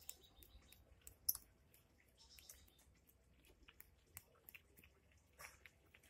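Faint, irregular sharp clicks and short crunches of a lovebird cracking seed with its beak at its feed cup, with one louder click about a second in.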